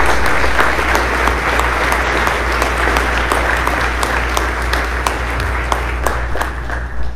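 Small seated audience applauding, a dense patter of many hands clapping.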